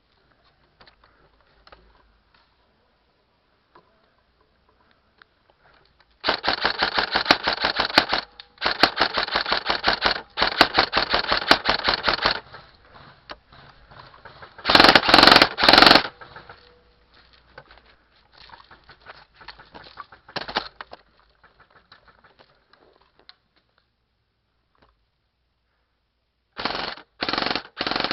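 Airsoft gun firing full-auto: three long bursts of rapid clicks, then a louder pair of bursts, and a few short bursts near the end.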